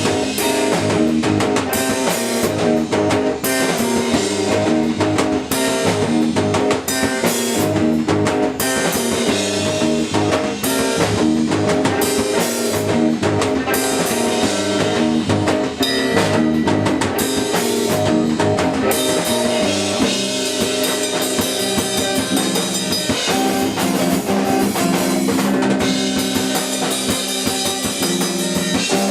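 A post-hardcore / math rock band playing live: drum kit and electric guitars with bass, in busy, rhythmically shifting patterns. About two-thirds through, the drum hits thin out and the guitars ring on steadier held notes.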